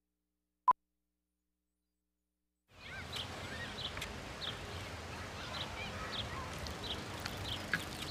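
A single short, sharp beep from a film countdown leader, then dead silence; about two and a half seconds in, backyard ambience fades up with birds chirping repeatedly over a steady outdoor hush.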